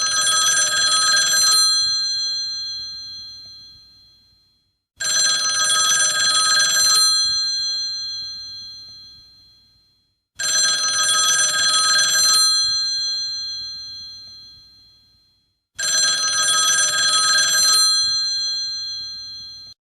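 Telephone bell ringtone: four rings about five seconds apart, each a rapid bell clatter of about two seconds that fades away over the next few seconds. The last one cuts off suddenly.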